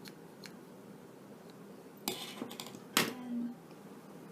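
Scissors cutting away the filler and thread from a stripped Ethernet cable: a few light clicks, a brief rustle about two seconds in, then a sharp metallic snip or click about a second later.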